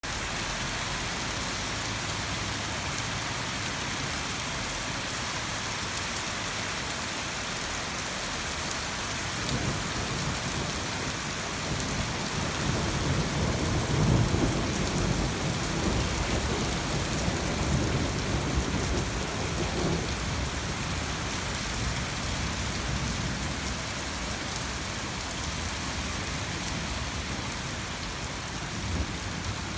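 Steady rain hissing, with a long low roll of thunder that swells about a third of the way in, is loudest around the middle, and dies away over the next several seconds.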